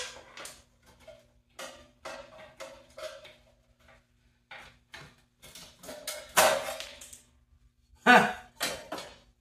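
Hand tool clinking and scraping against the steel side cover and bolts of a 1968 Toro Snow Hound 20 snowblower as the chain cover and wear plate are worked loose, a run of short metal clicks with louder ringing clanks about six and eight seconds in.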